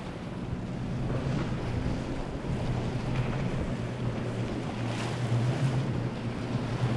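Outboard engines of fast center-console boats running at speed, a steady drone that grows stronger in the second half, over rushing water and spray, with wind on the microphone.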